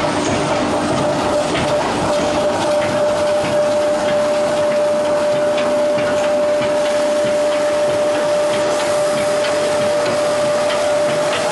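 Veneer peeling and clipping lathe running: steady machine noise with a constant whine and scattered small wooden knocks.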